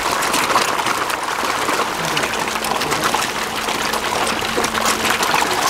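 A dense crowd of fish thrashing at the water's surface: continuous splashing water made up of many small, quick splashes.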